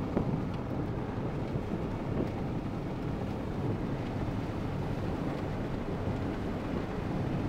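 Strong inflow wind blowing into a supercell, buffeting the microphone with a steady low rushing noise.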